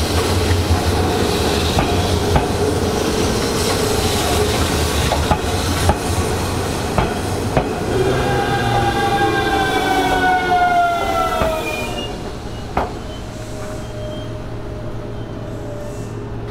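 Hanshin 5500-series electric train running, its wheels clicking over rail joints, then a whine from its motors that falls in pitch as it slows about eight seconds in. The sound drops to a quieter steady hum around twelve seconds, with one sharp click shortly after.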